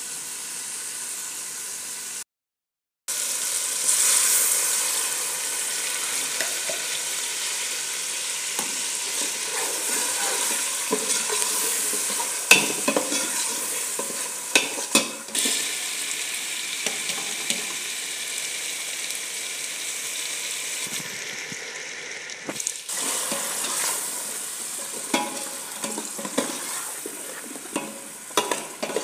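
Spiced masala frying and sizzling in oil in a metal pot, stirred with a metal spoon that clicks and scrapes against the pot.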